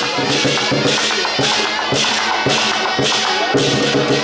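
Lion dance percussion: a big drum beating with cymbals clashing in a steady rhythm, about two strokes a second.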